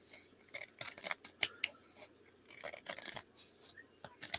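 Scissors snipping paper: a run of short, quick cuts in a few bursts, trimming the edges of a small paper tag.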